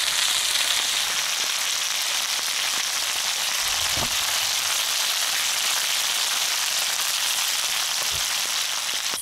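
Fish frying in hot oil in a pan, sizzling hard and steadily: the fire under it is giving too much heat.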